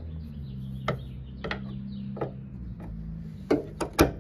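Sharp clicks and knocks of plastic on metal as the end fitting of a trunk lift-support gas strut is worked onto its ball-stud mount, about six in all, the loudest near the end, over a steady low hum.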